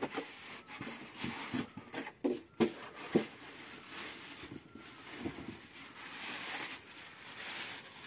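Handling inside a cardboard box: a few sharp knocks and taps in the first three seconds, then a longer rustle of a plastic bag being lifted out near the end.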